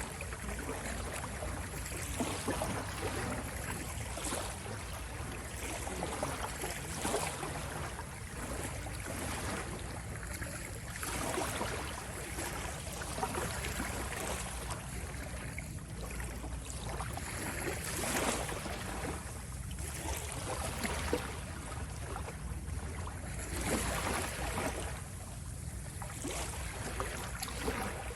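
Sea waves washing in: a continuous rush of water that swells and falls back every few seconds, over a low steady rumble.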